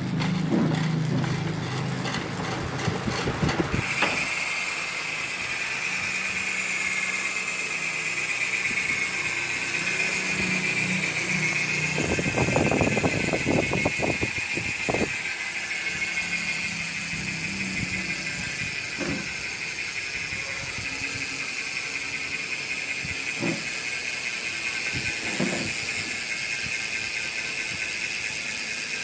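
SRAM X9 rear hub freewheeling: the pawls click rapidly as the wheel is spun up, then from about four seconds in they make a steady high buzz that sinks slowly in pitch as the wheel coasts down. A few separate knocks come in the middle and later on.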